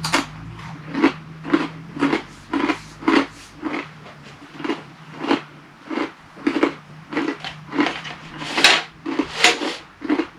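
Tortilla chips being chewed close to the microphone: steady crunching, about two crunches a second, a couple louder near the end.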